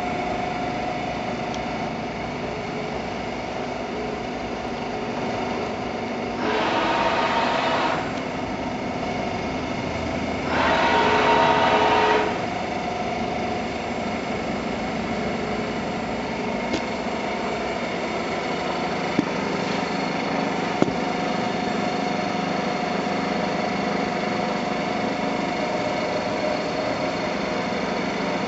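Huron PU661 CNC milling machine running, a steady mechanical hum with a faint whine. Twice, about a quarter and two-fifths of the way in, it gets louder and harsher for a second or two, and a few sharp clicks come later.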